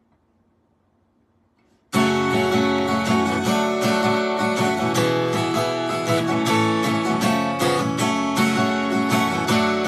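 Acoustic guitar with a capo, strummed chords: it starts abruptly about two seconds in, after near silence, and runs on as a steady instrumental intro.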